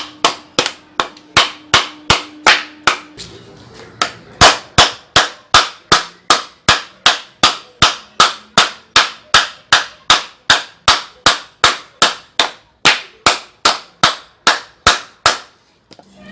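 Hammer blows on a wooden block, driving a new part into a washing machine's agitator mechanism: steady sharp knocks about three a second, a brief pause about three seconds in, then more of the same until just before the end.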